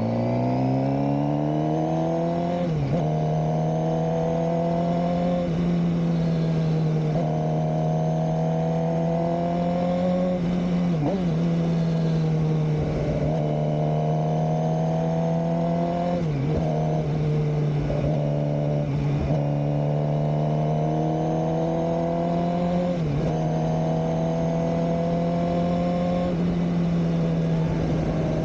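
Suzuki GSX-R600 K7's inline-four engine heard from on board while riding. The note climbs in the first couple of seconds, then holds at steady mid revs with short dips every two to three seconds.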